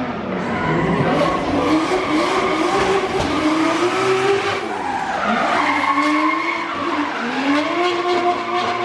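Drift car on track: its engine revving up and down through the run while the tyres skid and squeal. The engine note dips about five seconds in, then climbs and holds higher near the end.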